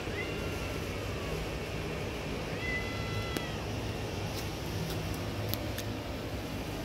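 A black-and-white domestic cat meowing twice: a short falling meow at the start and a longer, level meow about two and a half seconds in. A steady low hum runs underneath, and a few faint clicks come in the middle.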